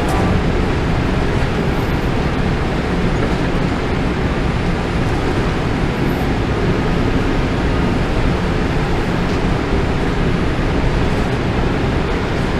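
Steady rushing cabin noise of a Boeing 787-8 on final approach: engine and airflow noise heard from inside the passenger cabin.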